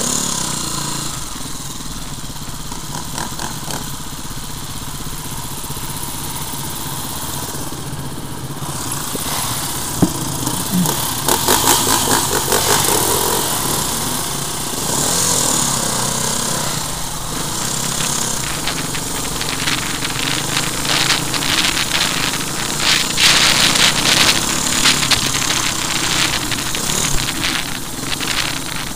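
Enduro dirt bike engines running at low speed on a grassy track, the rider's own bike closest. The sound gets louder and rougher from about ten seconds in, and again in the second half.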